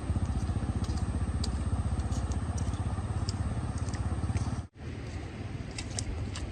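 A small engine running steadily with a fast, even pulse. About two-thirds of the way through, the sound cuts out abruptly, then a quieter running sound carries on with light clicks.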